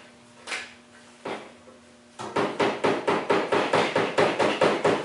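Fast run of knocks on the garage door opener's plastic cover case, shaking the dust out of it: two single knocks, then from about two seconds in a quick even rapping at about six a second.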